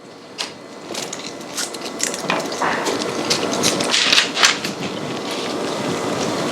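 Onion pieces being handled and laid on a parchment-lined baking sheet: scattered taps and knocks with crinkling paper, over a steady hiss that comes up about a second in.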